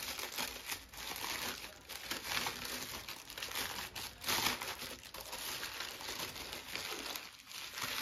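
Brown kraft packing paper being crumpled and pulled apart by hand to unwrap an item, in irregular rustling bursts with the loudest about four seconds in.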